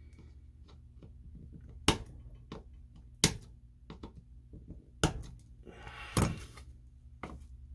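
Sharp clicks and knocks of small hard parts and tools being handled on a workbench during model assembly: four louder knocks, the loudest a little past the three-second mark, with fainter ticks between, over a low steady hum.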